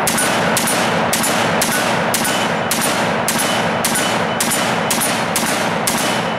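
LaRue OBR semi-automatic rifle firing .308 rounds in a rapid string of about a dozen evenly spaced shots, roughly two a second. The echo of each shot runs into the next.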